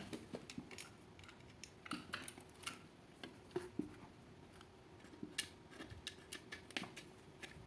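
Faint, irregular small clicks and taps of hands working a live wire into a wall socket's terminal, handling the plastic socket and tools.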